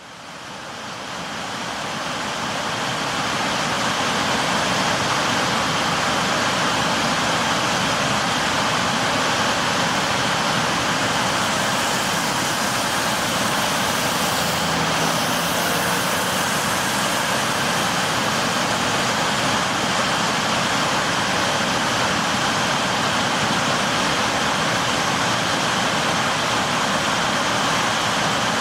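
Steady roar of floodwater being released through a dam's spillway, fading in over the first few seconds and then holding level.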